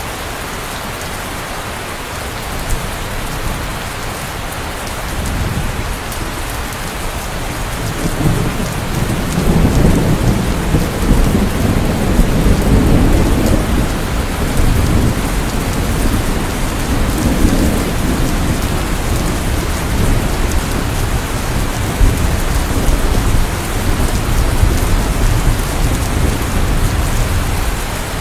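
Steady rain falling, with a deep rumble of thunder rolling in about eight seconds in and the whole growing louder from there.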